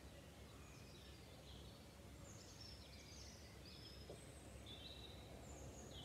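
Faint songbirds singing in the pre-dawn chorus: short high chirping and warbling phrases at varied pitches, over a steady low background rumble.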